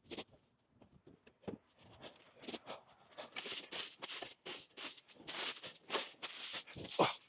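Rustling and crackling of cut holly brush being moved, in irregular bursts with sharp snaps.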